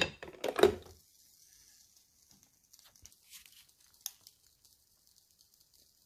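Two knocks in the first second as a glass coffee carafe is set back onto a small drip coffee maker. After that comes only faint hiss with a few light ticks.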